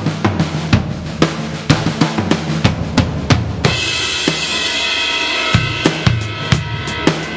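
Sampled Vistalite drum kit from BFD2, played through a 2Box drum module with a heavy rock preset: a steady beat of kick and snare hits, with a cymbal crashing and ringing on from about three and a half seconds in.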